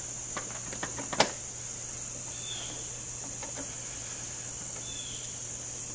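A sharp snip about a second in, with a few lighter clicks and taps around it: a plastic zip tie being cut off a headlight housing. A steady high-pitched drone runs underneath.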